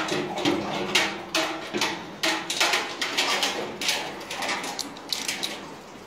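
Several Dobermans eating dry kibble from stainless steel bowls on a tiled floor: an irregular run of sharp crunches and clatters of the bowls.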